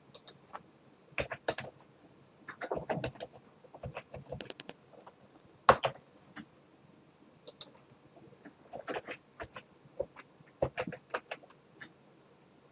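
Keystrokes on a computer keyboard in short, irregular runs with pauses between, as numbers are typed into fields, with one sharper click about halfway through.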